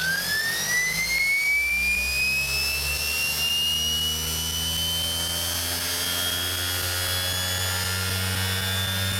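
Separately excited (SepEx) DC electric motor spinning up unloaded under its controller. Its whine rises in pitch over the first few seconds and then holds steady at speed, over a steady low hum.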